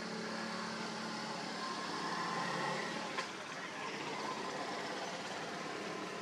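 A motor vehicle's engine hums steadily in the background and swells briefly around two to three seconds in. One sharp click comes about three seconds in.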